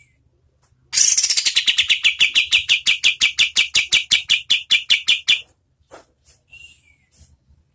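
A kapas tembak songbird singing its rapid "tembakan" trill: a fast, even machine-gun run of sharp notes, about nine a second, lasting about four seconds, followed by a few softer separate calls.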